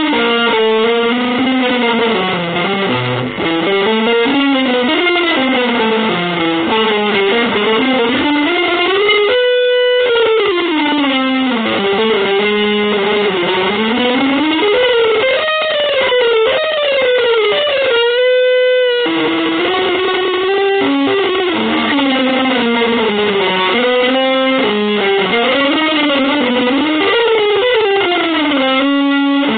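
Solo electric guitar through effects, playing fast, winding melodic runs. It settles on long held notes about nine seconds in, again about eighteen seconds in, and near the end.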